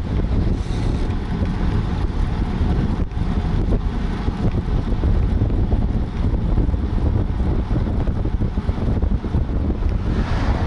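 Wind buffeting the microphone of a camera riding on a road bicycle at speed, a loud, steady low rumble. Near the end a car passes in the oncoming lane.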